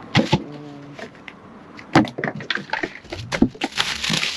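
Unboxing handling: a run of sharp knocks and thuds, then a rustling, scraping hiss near the end as the packaging is pulled open.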